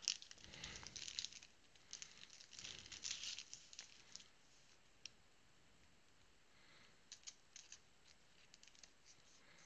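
Trading cards being handled: faint rustling and sliding of card stock in short bursts over the first four seconds, a single tick about five seconds in, then a few light ticks near the end.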